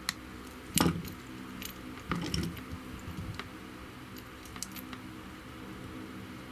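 Small clicks and a short jangling rattle of wire and small metal parts being handled on the bench, the loudest about a second in and a few more around two seconds, over a steady low hum.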